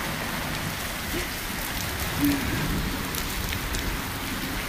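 Steady rain falling, with scattered single drops ticking. A brief low tone about two seconds in.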